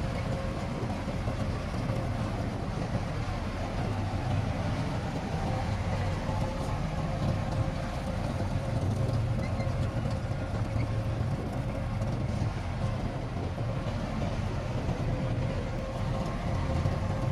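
Heavy diesel earthmoving machine, most likely the Shantui bulldozer, running steadily, with a steady high whine over the low engine drone.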